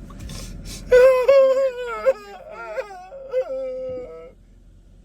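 A drawn-out, wavering wail that starts about a second in, stays mostly on one pitch for about three seconds with small dips and slides, then stops.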